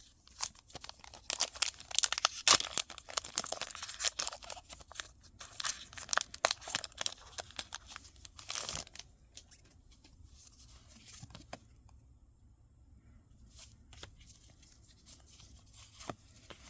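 A foil Pokémon card booster pack wrapper being torn open and crinkled, dense crackling for the first nine seconds or so, then a quieter stretch with a few faint clicks and rustles.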